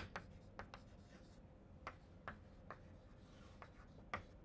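Chalk writing on a chalkboard: faint, irregular taps and short scratches as the chalk strikes and drags across the board, about a dozen light ticks spread unevenly.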